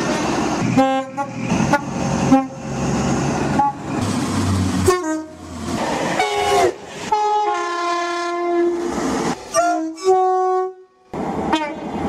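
British train horns heard in quick succession. A passing train's rumble carries several short horn blasts. Then a two-tone horn slides into a held high note followed by a lower held note, and another horn note sounds near the end.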